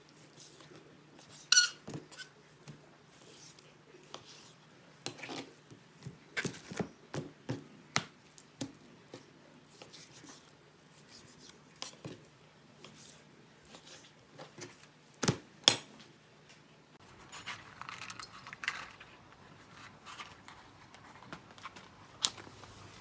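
Cooking utensils and pans being handled: scattered clinks and sharp knocks at uneven intervals, the loudest around a third of the way through and near two-thirds.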